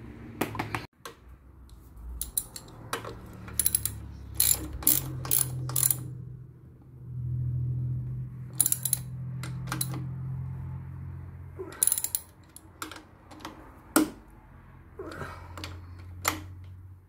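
Hand ratchet clicking in short bursts as it tightens a bolt at a motorcycle's front axle and fork leg, over a low steady hum.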